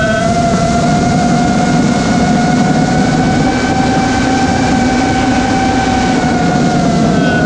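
Eachine Wizard X220 racing quadcopter's motors and propellers whining in steady flight, heard from the onboard camera with a rush of air. The pitch climbs a little, then drops near the end as the throttle eases.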